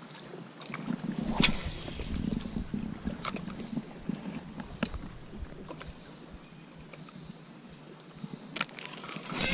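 Light handling noises from a spinning rod and reel while a lure is slowly worked: a few scattered soft clicks and taps over a low, quiet background.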